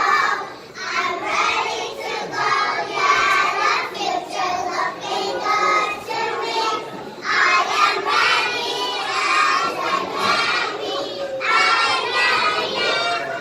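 Children singing, with sustained, wavering sung notes in phrases.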